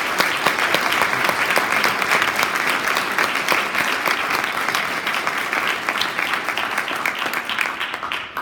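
An audience applauding, a dense steady patter of many hands clapping, starting suddenly and fading away at the end.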